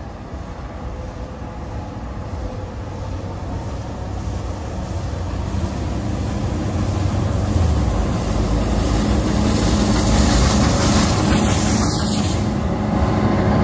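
Steam locomotive hauling a train, approaching and drawing close, growing steadily louder as it nears, with a steady low hum that grows in over the last few seconds.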